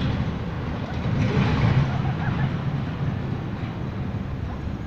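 Steady low rumble of wind on a phone's microphone mixed with street traffic, swelling about a second in, with a faint voice under it.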